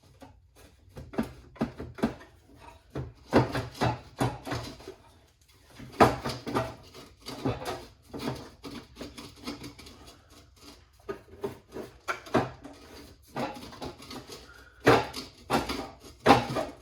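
Irregular metallic clanks, knocks and rattles of hand tools and parts during the teardown of a snowmobile's exhaust, coming in clusters with short gaps.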